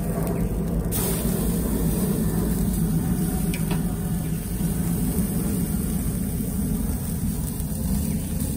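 Ribeye steaks sizzling on a searing grate over a propane burner at high heat: a steady hiss over the burner's low rushing flame.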